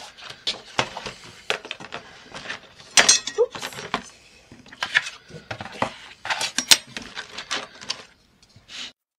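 Paper sheets and craft tools handled on a cutting mat: a run of clicks, knocks and clatters as pages, a cutting mat and a metal ruler are moved and set down, the loudest clatter about three seconds in. The sound stops suddenly near the end.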